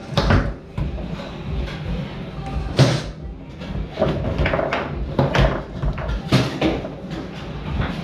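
Tornado foosball table in play: sharp knocks of the ball being struck by the rod men and hitting the table's walls, with the rods clacking. The hardest knocks come about three seconds in and just after six seconds.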